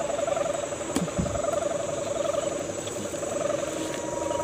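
Kite hummer (sendaren), a bamboo bow strung with a taut ribbon, droning in the wind with a steady, wavering hum. A brief knock sounds about a second in.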